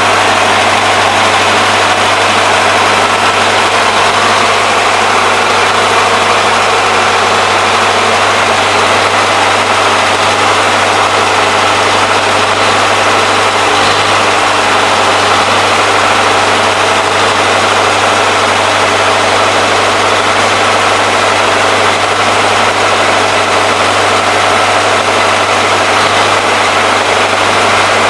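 Biogas-fuelled spark-ignition generator engine running steadily at constant speed, a continuous loud hum.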